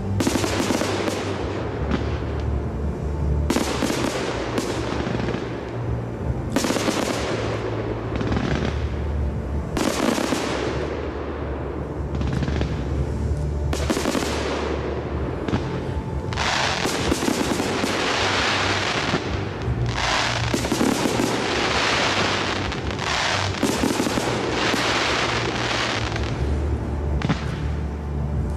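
Fireworks display: aerial shells bursting in salvos with crackling, fading tails, a few seconds apart at first, then a dense run of rapid volleys in the second half, with music playing underneath.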